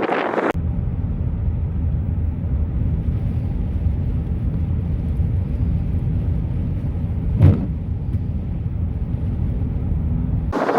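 Low, steady rumble of a vehicle, with one brief knock about seven and a half seconds in.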